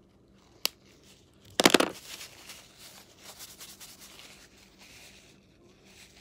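A sharp click about half a second in, then a loud rustle as a paper tissue is handled and rubbed between the fingers close to the microphone, trailing off into softer rustling.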